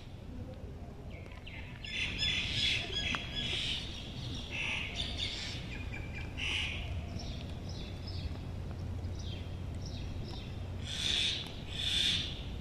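Birds chirping and calling: a run of short, high calls with two louder calls near the end, over a steady low hum.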